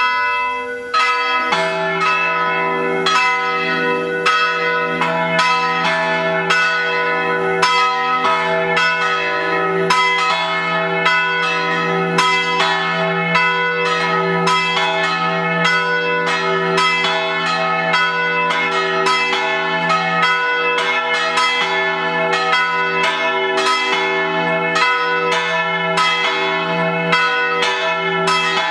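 Three church bells of Senigallia Cathedral swinging a mezzo slancio (half-swing) in a solemn peal, their clappers striking in a continuous, overlapping stream of ringing strokes. A deeper bell joins about a second and a half in.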